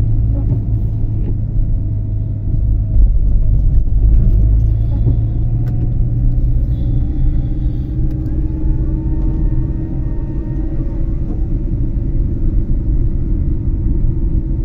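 Car interior noise while driving on wet roads: a steady low rumble of engine and tyres, with a faint engine whine that rises slowly past the middle. It gets louder for a moment about three seconds in.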